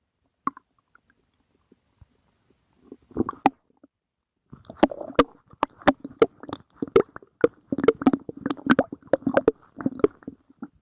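Human stomach growling: a short gurgle, a brief rumble about three seconds in, then from about four and a half seconds a long, irregular run of gurgles with many quick pops.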